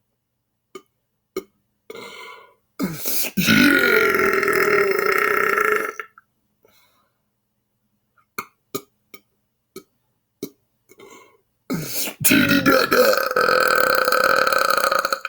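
A man belching loudly twice, each burp drawn out for about three seconds. Each one starts with a rise in pitch and then holds a steady note.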